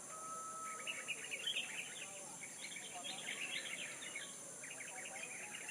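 Small birds chirping in quick, twittering bursts, starting about a second in and returning near the end, over a steady high insect drone.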